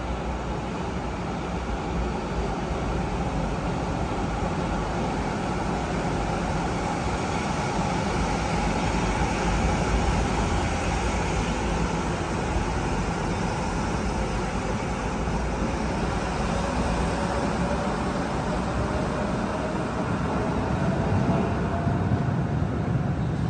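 Dortmund Stadtbahn N-type light-rail car, the N6C work car converted from N8C no. 142, running through an underground station. It makes a steady rail rumble and running noise, with a faint whine that falls slowly in pitch through the second half as the car moves off.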